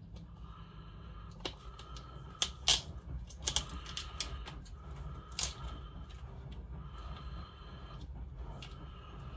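Scattered sharp clicks and taps of small plastic and metal laptop parts being handled, the loudest few about two and a half seconds in, over a faint steady hum.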